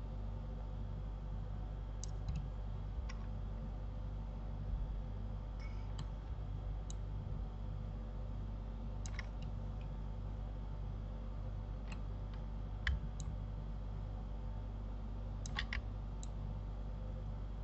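Scattered clicks of a computer mouse and keyboard, about a dozen at irregular intervals, some in quick pairs and a short cluster near the end, over a steady low hum.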